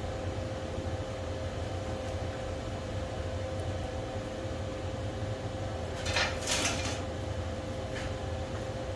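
Steady mechanical hum, with a brief double clatter of metal being handled about six seconds in and a faint click near the end.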